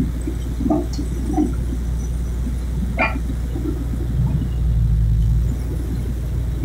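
Water well drilling rig's engine running steadily with a low hum that swells for about a second around four and a half seconds in. A single sharp metallic knock comes about three seconds in.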